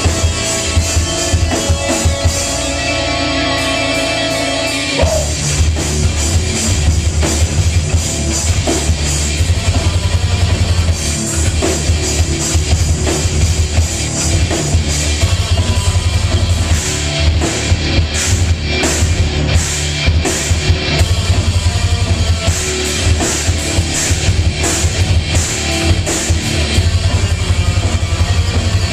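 Live rock band playing loud: drum kit, electric guitars, bass guitar and keyboard. About five seconds in, the held chords break into a dense, driving full-band section with heavy drums and bass.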